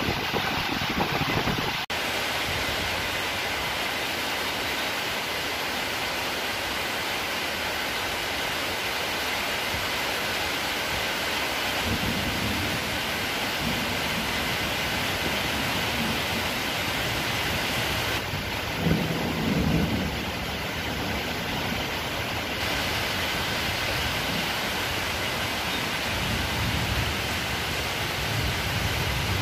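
Steady rain falling, an even hiss throughout, with a few low rumbles in the background.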